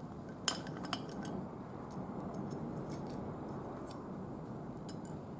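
Small metal clicks and ticks of a screwdriver and the steel parts of a wheel lock as a screw is taken out of the pan, the sharpest about half a second and a second in, over a steady low hiss.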